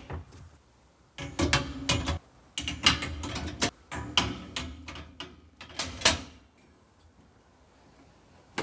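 Carousel storage baskets clicking and rattling as they are clipped onto the hooks of the unit's extended runners: a busy run of knocks and clatters that stops about six seconds in.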